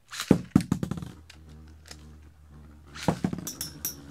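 Two Metal Fight Beyblades, Rock Aries ED145B and Poison Serpent SW145SD, launched into a plastic BB-10 stadium: a quick rattle and knocks of the launch and the tops landing, then the tops spinning with a steady low hum. About three seconds in they clash, with sharp metallic clinks.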